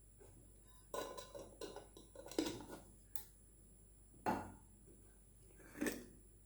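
A spoon clinking and tapping against kitchen vessels as pepper powder goes into a tumbler of hot milk: a quick run of light clinks about a second in, then single taps about four and six seconds in.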